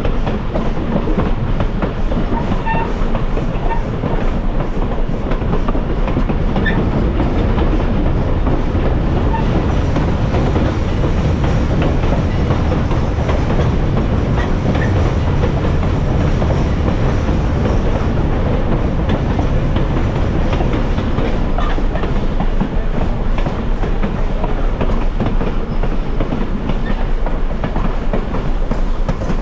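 Moving passenger train on rails: a steady run of wheel and car noise with clickety-clack from the rail joints.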